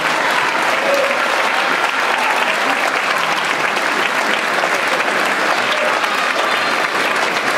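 Large theatre audience applauding steadily at the close of an opera aria.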